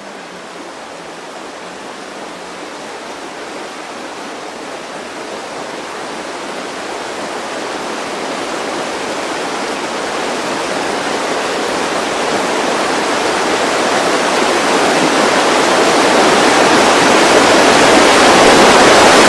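A steady rushing, hiss-like noise with no pitch or rhythm, swelling evenly from faint to very loud over the whole stretch.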